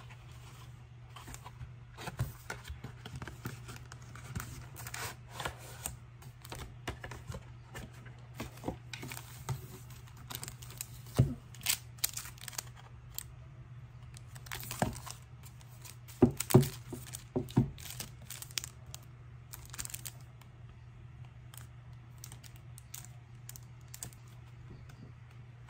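Paper and plastic packaging rustling and crinkling as a cardboard album box is unpacked by hand, with irregular sharp taps and knocks of the box and its contents on a desk, loudest in the middle.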